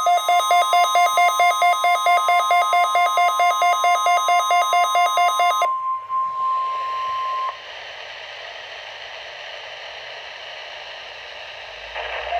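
A weather alert radio's alarm beeping rapidly and loudly over the steady 1050 Hz NOAA Weather Radio warning alarm tone, which signals the receivers to switch on. The beeping stops about six seconds in and the steady tone ends a second or so later, leaving radio static hiss. Just before the end another receiver starts beeping.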